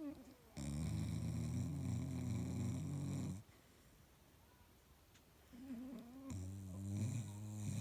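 A sleeping dog snoring: two long snores, the first lasting nearly three seconds, the second coming in with a softer breath about five and a half seconds in.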